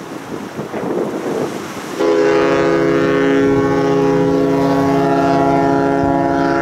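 The cruise ship Nippon Maru's whistle sounding one long, steady blast that starts about two seconds in, after a short stretch of wind noise.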